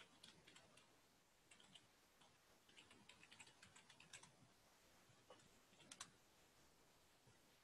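Faint computer keyboard typing in short bursts of keystrokes, with a louder pair of key clicks about six seconds in.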